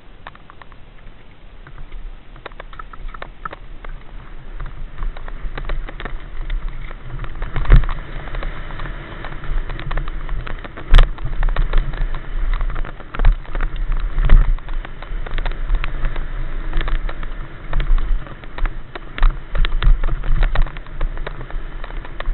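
Mountain bike descending a dirt downhill trail, heard from the rider's helmet camera: tyres on dirt and the bike rattling and knocking over bumps, under a constant low rumble. It builds over the first few seconds as the bike gathers speed, and the hardest knocks come about eight, eleven and fourteen seconds in.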